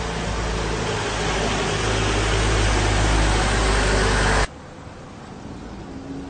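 Boat engine running with a steady low drone under a loud rush of wind and water on the microphone; the sound drops sharply to a quieter engine drone about four and a half seconds in.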